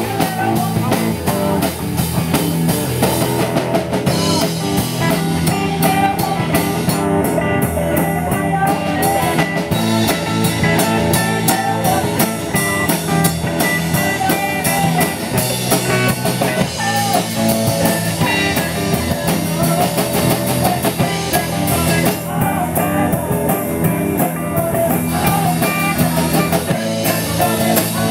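A live rock band playing a driving rock-and-roll number, with electric guitars over a drum kit and keyboard. The cymbals drop out briefly twice.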